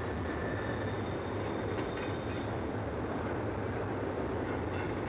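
Double-stack container train's well cars rolling past, a steady low noise of steel wheels on rail.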